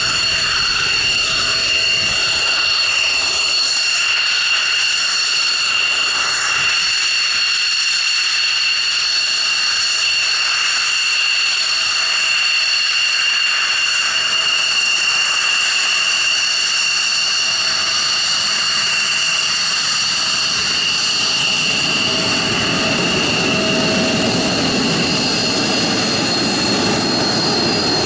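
Belgian F-16's Pratt & Whitney F100 turbofan at taxi power: a steady, high-pitched, multi-tone whine. A low exhaust rumble grows in the last few seconds as the jet taxis past with its nozzle turning toward the listener.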